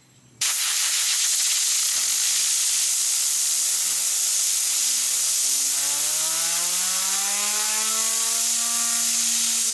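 Compressed air blasting from an air compressor's blow gun nozzle in a steady hiss, starting about half a second in and cutting off at the end. Beneath it, a silver two-sided metal fidget spinner hums, its pitch rising steadily as the air jet spins it faster.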